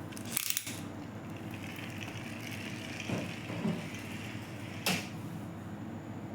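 A few sharp clicks and softer knocks of plastic toys being handled, over a steady low hum.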